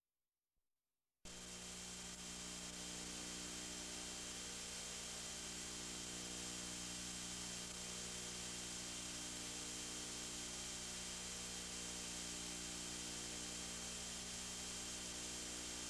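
Steady electrical hum and tape hiss from a VHS playback with no program sound. It switches on abruptly about a second in, a mix of several steady tones over an even hiss.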